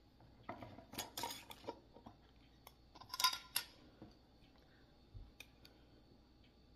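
Metal screw lid being twisted off a glass mason jar, with a run of scraping clicks about a second in and sharper metal clinks around three seconds in.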